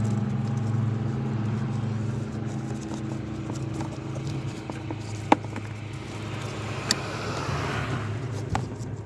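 A steady engine hum that fades out about halfway through, then a few sharp clicks and knocks from a wrench working on the oil filter cap.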